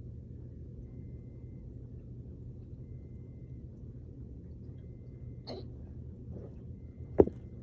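A person's hiccups held in with the mouth closed: short muffled jolts, one about five and a half seconds in, a faint one a second later, and the loudest near the end.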